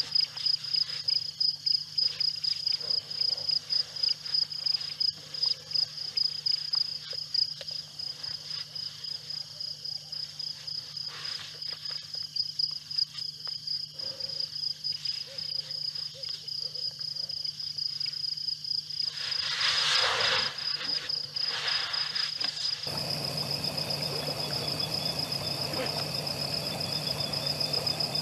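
Crickets chirping in a steady high-pitched trill that pulses about twice a second. A short rush of noise comes about twenty seconds in, and near the end a steady hiss rises beneath the chirping.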